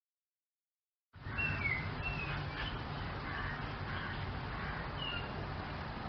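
Silence for about the first second, then outdoor ambience: a steady low rumble with a few short, high bird chirps, three close together near the start and one more near the end.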